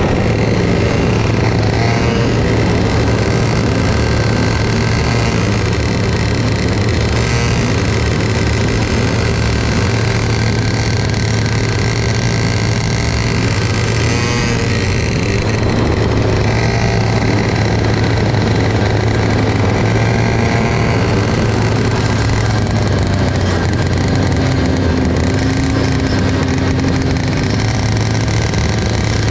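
Racing kart's small single-cylinder engine running steadily at moderate speed, heard close up from the kart itself, its pitch rising and falling a few times as it speeds up and slows.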